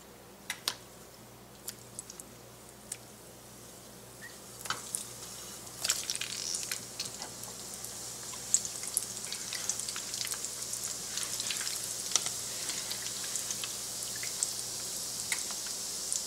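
Donut holes of yeast dough frying in hot oil in a pan. A few scattered taps come first, then a sizzle and crackle that builds from about six seconds in and grows steadily louder as the oil bubbles around the dough.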